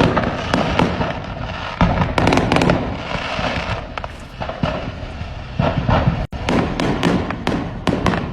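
Fireworks going off in a dense, continuous barrage: many rapid overlapping bangs and crackles, with a brief cutout about six seconds in.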